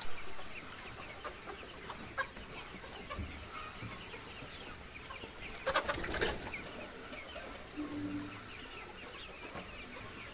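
A large flock of chickens clucking and calling all at once, a continuous dense chatter of many birds, with a louder burst about six seconds in.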